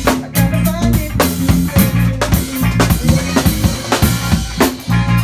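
A rock band playing live: drum kit with kick and snare hits, a steady bass guitar line and electric guitar.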